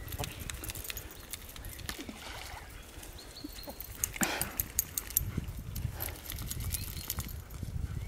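Two wet wolfdogs romping on grass: paws thudding and scuffling, with a cluster of sharp clicks and slaps about four to six seconds in, over a low rumble.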